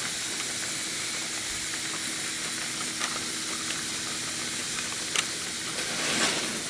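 Battery-powered GeoTrax toy train running along its plastic track: a steady low motor hum under an even hiss, with a few sharp clicks.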